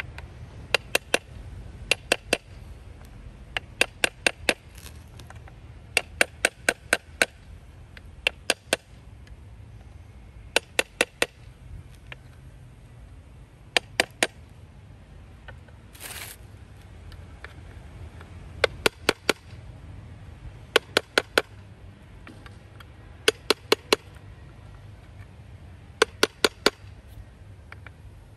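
Hammer tapping on the rusted metal base plate of an old Robbins & Meyers fan around two seized, oiled screws, to shake them loose. The sharp taps come in quick groups of two to five, about every two seconds, with a short hiss about halfway through.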